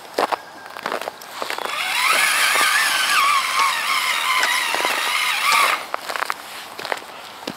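Traxxas Summit RC truck's electric motor and gearbox whining for about four seconds in the middle, the pitch wavering up and down with the throttle as it crawls over a frozen dirt and snow pile. Scattered clicks and knocks of the tyres and chassis on frozen lumps come before and after the whine.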